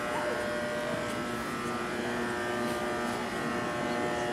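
A steady hum made of several constant tones over a faint noisy background, unchanging throughout.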